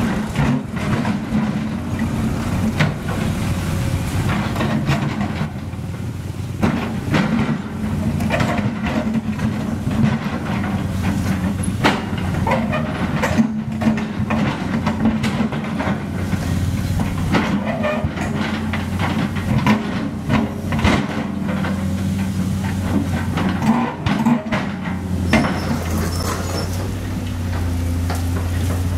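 Heavy diesel engine of a Sumitomo SH200 excavator running under load, with scooter engines passing and irregular clatter and knocks of broken asphalt being dug and dropped. Near the end a steadier, deeper diesel engine takes over, a dump truck running.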